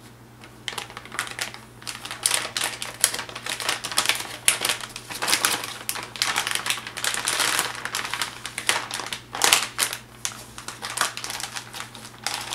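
Plastic anti-static bag crinkling and crackling in quick, dense runs as it is handled and pulled off a motherboard in its foam packing, starting about half a second in.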